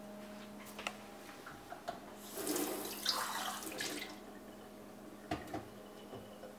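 Kitchen tap running into a stainless-steel sink for about two seconds, starting about two seconds in, with a few light knocks before and after.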